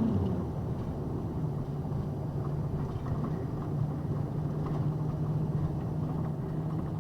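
Box truck's engine running with a steady low hum.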